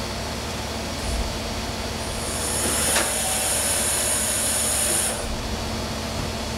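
A Fadal VMC-6030 vertical machining center running with a steady hum and broad mechanical noise. A high hiss starts about two seconds in and stops about three seconds later, with a single click near its middle.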